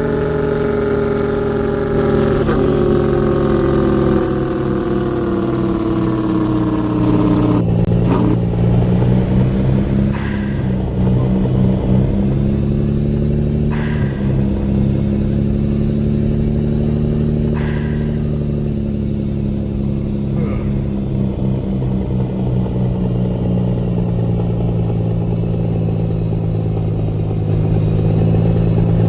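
Truck engine running, its pitch falling steadily for about seven seconds as it slows, then changing abruptly and running steady at a lower, even pitch. Sharp clicks sound every few seconds over it.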